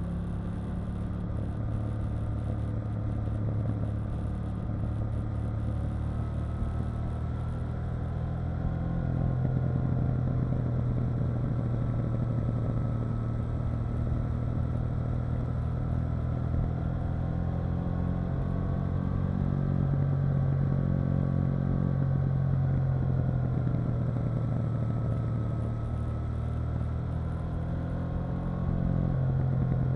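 KTM 890 Duke R's parallel-twin engine running under way, its note rising and falling gently as the revs change. It gets a little louder about nine seconds in and again near the end.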